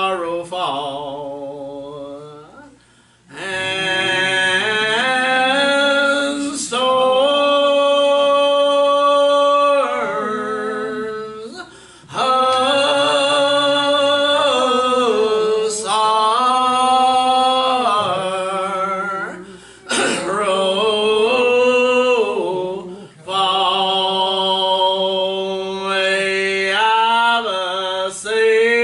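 Slow church hymn singing: voices draw out long held notes with vibrato, with short pauses for breath between phrases.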